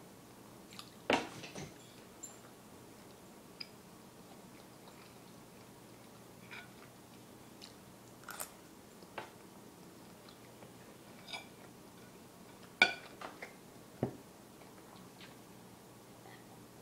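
A person eating at a table: soft chewing with scattered short clicks and clinks of a fork and knife against a plate, the sharpest about a second in and another about three-quarters of the way through.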